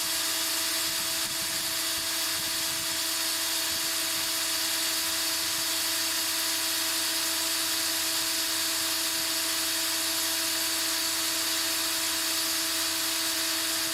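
Electric hand drill running at a steady full speed, drilling a screw hole for the cooling unit's temperature sensor, with an even motor whine and hiss.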